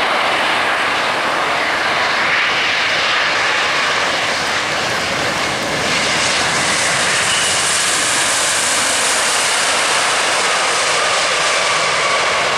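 Boeing 777-200 airliner's twin jet engines running loud and steady through its landing. About halfway through the sound turns hissier, and a steady high whine holds over the rush.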